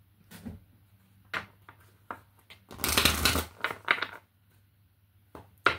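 A deck of oracle cards being shuffled by hand. Short flicks and taps are followed by a dense rustle of cards about three seconds in, then more flicks and one sharp snap near the end.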